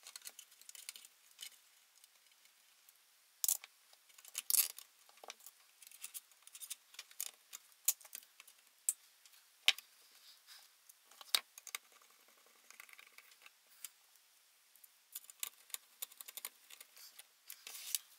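Scattered small metal clicks, taps and rattles as a PC power supply's sheet-steel case, screws and wiring are handled during reassembly. The loudest clatter comes about three and a half to five seconds in.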